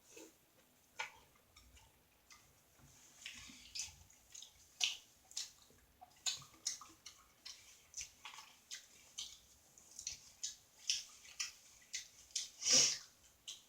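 Close-up wet chewing and mouth smacking, a run of short, sharp wet clicks coming about two a second, with one louder smack near the end.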